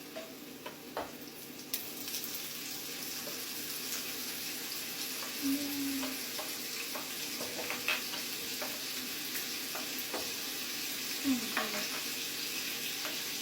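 Diced ham frying in hot oil with garlic and onion in a pan, a steady sizzle that grows louder about two seconds in, with scattered clicks of a utensil stirring against the pan.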